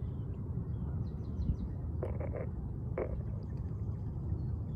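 Faint bird chirps over a steady low rumble, with a few short soft scrapes about two seconds in and one more about three seconds in.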